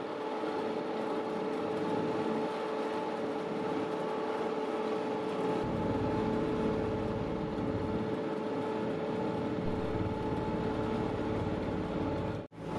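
A boat's engine running at a steady speed: an even, unchanging hum.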